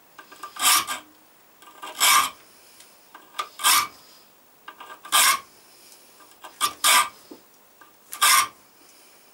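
Hand file rasping across the spine of a steel knife blank, cutting thumb-grip notches (jimping): six short, loud forward strokes about one and a half seconds apart, with lighter scrapes between them as the file is repositioned.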